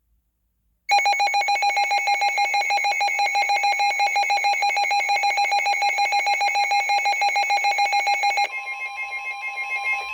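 Emergency Alert System warning tones: a loud, fast-pulsing electronic alert tone starts about a second in, then about 8.5 seconds in gives way to a quieter steady two-pitch attention tone, signalling that an emergency bulletin is about to be read.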